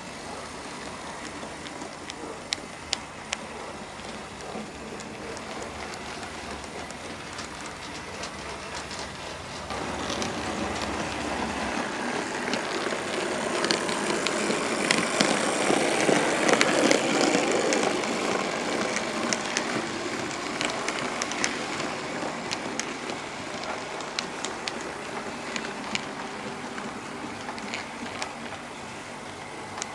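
OO gauge model trains running on the track: a steady rattle of wheels and motors, with sharp clicks at the rail joints. The running grows louder as a train passes close by about halfway through, then eases off.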